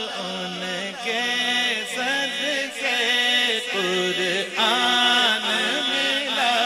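Unaccompanied voices singing a slow, wavering, drawn-out melody in the style of a naat, with no instruments or percussion.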